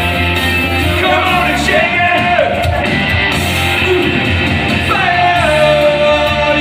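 Karaoke: a singer singing a rock song loudly into a microphone over a recorded backing track, with long held notes.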